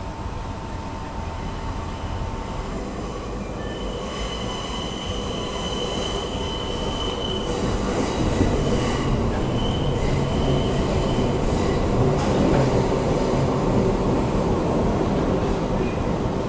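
New York City subway train pulling away and running into a curving tunnel, heard from inside the front car, its running noise growing louder as it picks up speed. From about four seconds in, the steel wheels squeal on the curve for several seconds.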